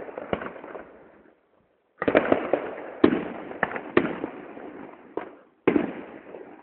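Aerial fireworks bursting: a series of sharp bangs, each trailing off in an echoing rumble. A short lull comes after about a second, then a quick volley of bangs.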